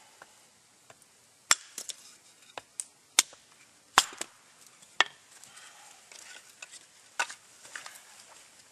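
Hatchet chopping and splitting small sticks into kindling: a series of sharp wooden knocks, about ten strikes, with the hardest blows about a second apart in the middle and one more near the end.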